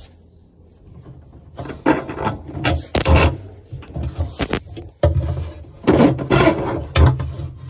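Plastic dishwasher water and drain hoses being dragged by hand through a hole in a sink cabinet, scraping and rubbing against the cabinet, in a series of irregular scraping strokes that begin about a second and a half in.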